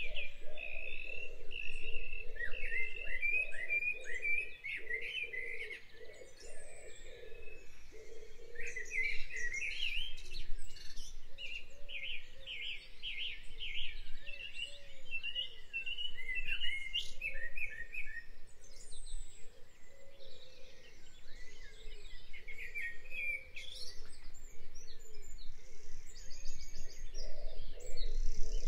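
Several birds chirping and singing, with quick high chirps and trills overlapping throughout.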